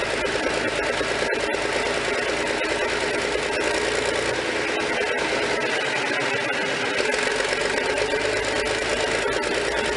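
1943 Cummins 672-cubic-inch diesel engine of an Army generator set running steadily, with an even, rapid diesel clatter.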